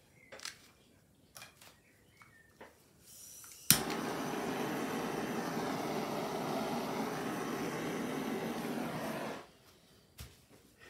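A handheld air blower switches on with a sharp click a few seconds in and blows a steady rush of air over wet acrylic paint for about five and a half seconds, then cuts off. A few light knocks come before it.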